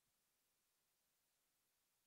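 Near silence: faint steady hiss.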